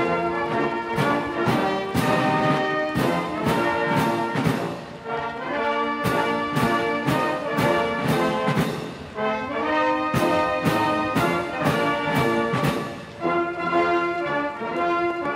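Military brass band playing a march: sustained brass chords over regular drum strikes.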